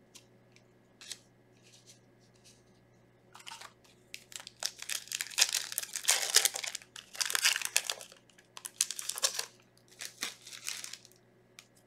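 Foil Yu-Gi-Oh booster pack wrapper crinkled and torn open, a run of crackly rustling that starts a few seconds in.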